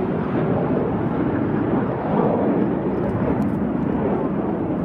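Steady jet-engine noise from the Blue Angels' F/A-18 Hornet jets flying in formation.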